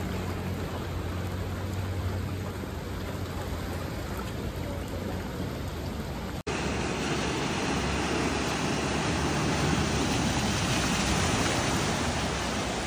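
Floodwater flowing fast across a street, with rain, as a steady rushing noise. It breaks off for an instant about six seconds in and comes back louder.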